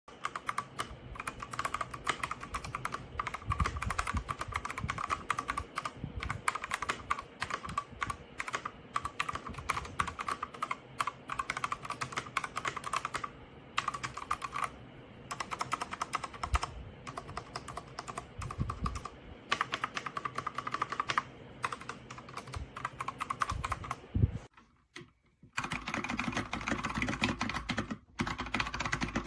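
Fast typing on a Redragon K689 gasket-mounted mechanical keyboard with linear switches: a dense, continuous clatter of key presses. It breaks off briefly a few times, with a pause of about a second near the end.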